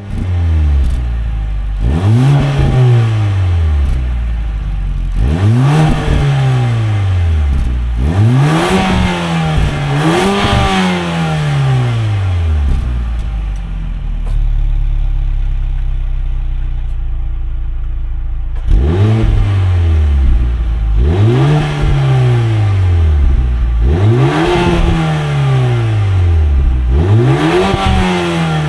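Mercedes-AMG A35's stock M260 2.0-litre turbocharged four-cylinder free-revving from idle: eight quick blips that rise and fall back. The first four come in the first ten seconds or so, and the last four after a steady idle of about six seconds in the middle.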